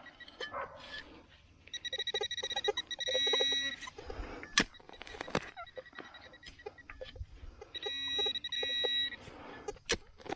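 A metal detector's electronic target tone, a rapidly pulsing beep heard in two spells, about two seconds in and again near the end. Between the beeps come sharp knocks and scrapes of digging into the soil after the target.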